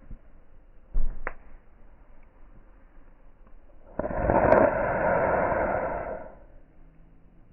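Wood campfire with faint crackles and a single knock about a second in, then a loud rushing whoosh of air lasting about two seconds.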